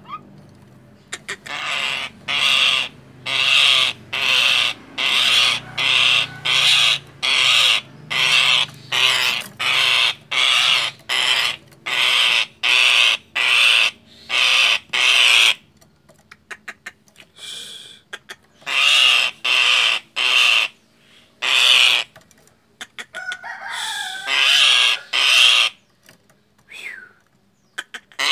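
Common myna giving harsh alarm calls in a fast, regular series, about three calls every two seconds. After a pause about halfway through, the calls resume in shorter bursts. This is the myna's frightened call.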